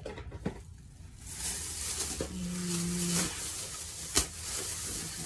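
Thin plastic shopping bag rustling and crinkling as hands rummage inside it. A brief low hum comes about two seconds in, and a single sharp click near the end is the loudest sound.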